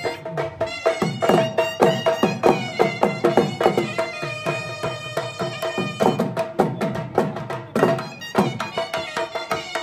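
Traditional folk music: a drum beating a quick rhythm under a held, sustained melody line.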